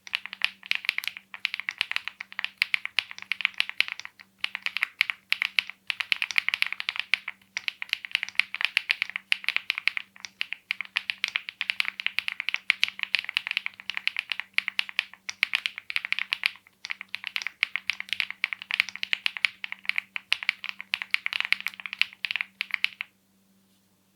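Weikav Record Alice mechanical keyboard with HMX Macchiato linear switches and GMK-Y keycaps being typed on steadily in fast bursts of key strokes with brief pauses, stopping about a second before the end.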